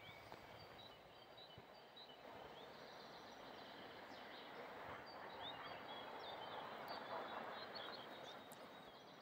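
Faint ambience of small birds chirping and singing in short calls, over a soft steady hiss that swells a little midway.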